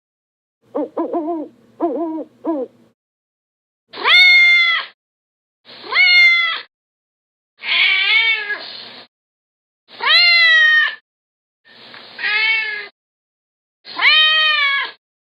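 A quick run of about five short owl hoots, then a domestic cat meowing six times, each meow about a second long and rising then falling in pitch. The meows are the louder sound.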